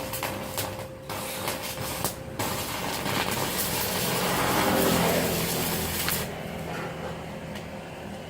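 Stick-welding arc from an IGBT inverter welder burning a 4 mm electrode, a steady crackling hiss that breaks off briefly about one and two seconds in and stops about six seconds in.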